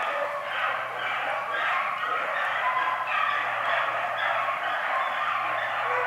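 A pack of beagles baying together in a dense, continuous chorus while running a rabbit.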